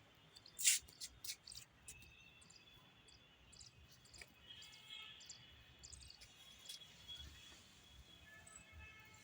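Small birds chirping faintly, with scattered sharp clicks, the loudest a little under a second in.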